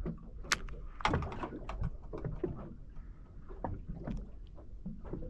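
Irregular knocks and clatter on a small fishing boat, a sharp knock about half a second in and a burst of clatter about a second in, over a low steady rumble.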